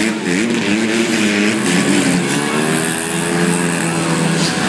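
Several small dirt bike engines revving as they race, overlapping with their pitch rising and falling as riders throttle through a turn.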